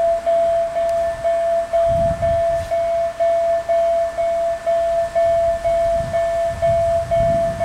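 Railroad level crossing warning signal ringing, a single steady tone pulsing about twice a second: the crossing is active, warning of an approaching train.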